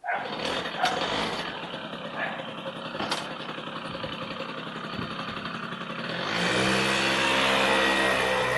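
Suzuki FZ50 moped's small two-stroke single-cylinder engine running, uneven and rattly with a few sharp clicks. About six seconds in, the revs rise to a louder, steadier note.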